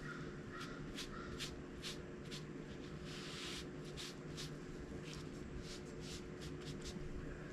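Paint being dabbed and brushed onto a metal bicycle fender: short, light scratchy strokes at uneven spacing, with one longer stroke about three seconds in, over a steady low hum.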